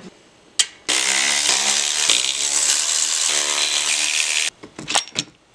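Cordless electric ratchet running for about three and a half seconds as it backs out a rocker support plate bolt on a Harley-Davidson Twin Cam cylinder head, its motor whine shifting pitch twice as the load changes. A few light clicks follow after it stops.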